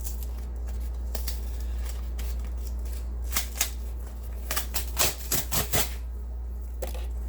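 A shipping package being opened and handled by hand: scattered sharp clicks, scrapes and tearing, busiest about three to six seconds in.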